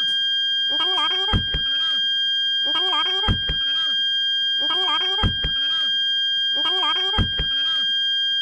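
Toyota Calya/Sigra parking sensor sounding one continuous, unbroken high beep, the steady tone these sensors give when an obstacle is very close. About every two seconds, four times, a short wavering sound ending in a thump cuts in over it.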